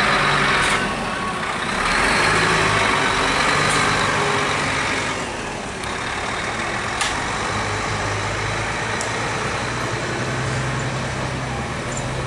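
Steady noisy rush and low hum at an outdoor street-food stall while a paratha cooks on a large iron griddle, with one sharp metal clink about seven seconds in.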